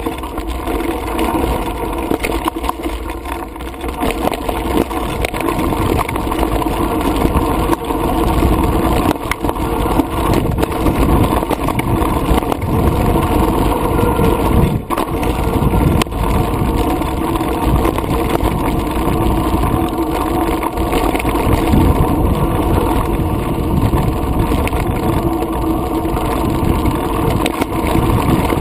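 2010 Specialized Stumpjumper Comp mountain bike descending a dirt singletrack: a steady rush of wind and rumbling tyre noise, with constant rattling and knocking from the bike over the rough trail. It grows louder over the first few seconds, then holds.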